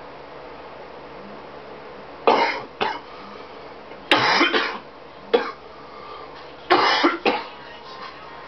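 A person coughing in three fits of two to four coughs each, about two, four and seven seconds in: coughing from inhaled smoke.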